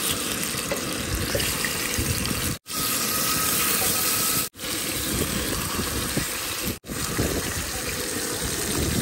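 Salmon fillets sizzling steadily in hot oil in a frying pan, broken by three brief dropouts.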